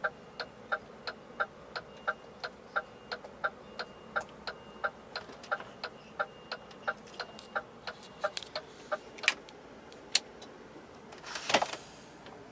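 Indicator flasher of a DAF truck ticking evenly about three times a second in the cab, stopping about two-thirds of the way through. Two sharper single clicks follow, then a short burst of noise near the end, the loudest sound.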